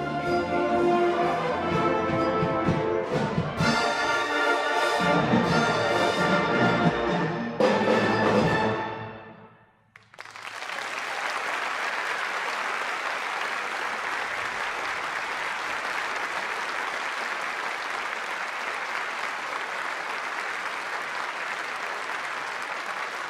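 Large concert band with brass playing the closing bars of a piece, ending about eight seconds in on a loud final chord that dies away in the hall's reverberation. After a moment of near silence, a large audience breaks into steady applause.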